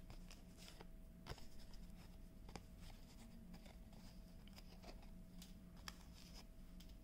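Faint, irregular clicks and light paper rustling as small pre-cut holes are punched out of a paper lamp face by hand.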